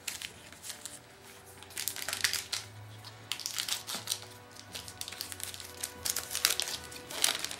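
Crinkling and rustling of trading card packs and cards being handled, in irregular bursts, with quiet background music underneath.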